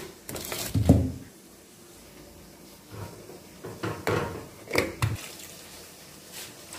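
Kitchen handling sounds from a metal mixing bowl: a few short knocks and rustles as flour and spices are tipped onto grated potato and a hand starts working the mixture. The loudest knock comes about a second in, with a cluster of smaller ones a few seconds later.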